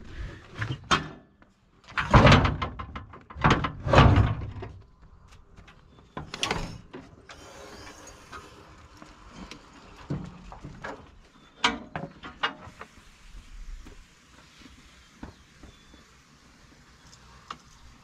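Loud metallic bangs and clanks from a Bobcat skid steer's steel body as it is opened up to reach the hydraulics under the cab, the two loudest about two and four seconds in. Scattered lighter clicks and knocks follow.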